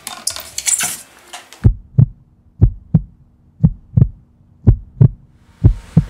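Heartbeat sound effect: loud, low double thumps (lub-dub) about once a second, starting about one and a half seconds in, over a faint steady hum. A short noisy passage comes before the beats.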